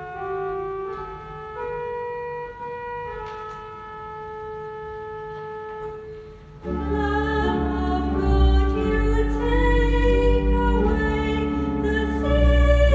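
Church organ playing: a quiet single melody line of held notes, then about seven seconds in, full chords with deep bass notes enter much louder.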